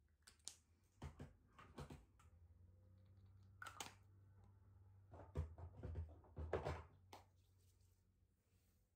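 Faint rubbing and rustling of hands being rubbed together against the sleeves of a fleece bathrobe, in two short spells about a second in and around six seconds in, with a few light clicks.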